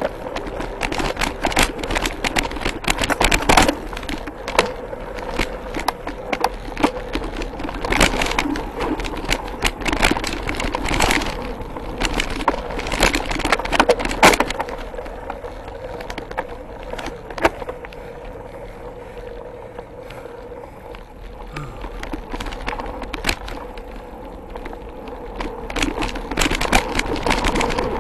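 Mountain bike riding over a rough dirt trail: tyres rolling and the bike rattling with many knocks and clatters over the bumps, smoother and quieter for a stretch after the middle, then rough again near the end.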